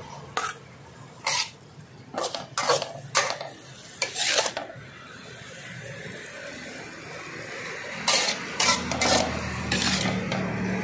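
Metal spatula scraping and clanking against a metal wok as stir-fried pork and greens are scooped out onto a plate. The strokes come in two bursts, several in the first few seconds and more from about eight seconds in, over a steady low hum.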